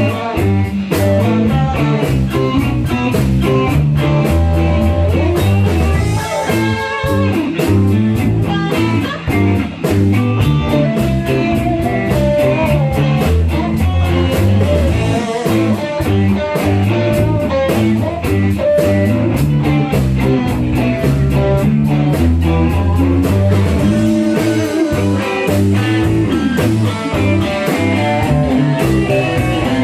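Music: a song led by guitar, with bass and a steady beat.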